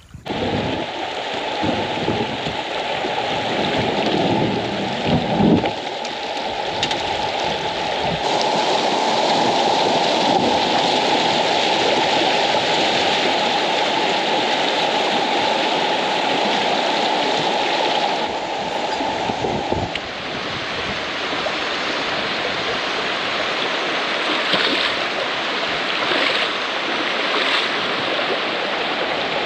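Rushing water of a rocky river's shoals: a loud, steady wash that starts suddenly, with a few thumps in the first several seconds.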